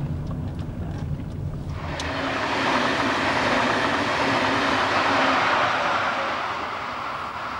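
Low car-cabin rumble that cuts off after about two seconds. It gives way to the loud, even rushing noise of an electric passenger train passing close by at speed, loudest in the middle and slowly fading.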